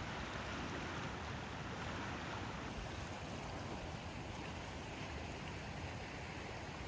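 Strong gusty wind blowing steadily, with a heavy low rumble of wind buffeting the microphone.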